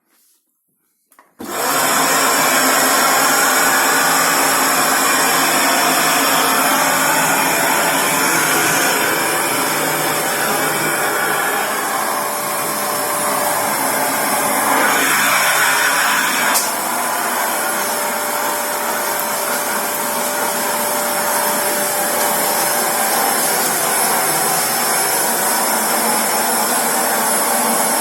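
Vacuum cleaner switching on about a second in, then running steadily with a loud whooshing motor hum, its tone shifting slightly as it is moved over the floor.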